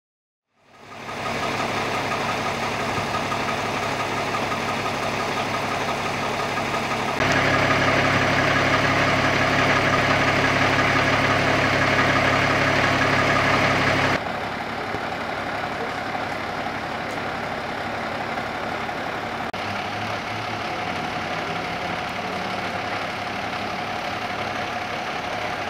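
A large truck engine idling steadily, with a low, even clatter. It gets louder about a quarter of the way in and drops back about halfway through.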